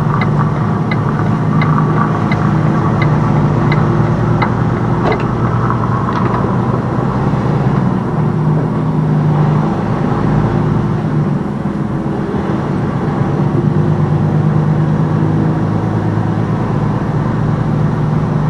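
Semi-truck's diesel engine running steadily while driving, heard from inside the cab. A light regular ticking, about two a second, sounds during the first five seconds and then stops.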